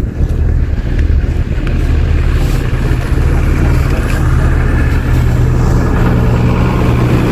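Fire truck's diesel engine running close by: a loud, steady low drone that builds slightly about five seconds in.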